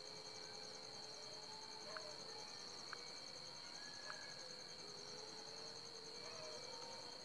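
Crickets trilling faintly and steadily in the background, a high-pitched pulsing trill.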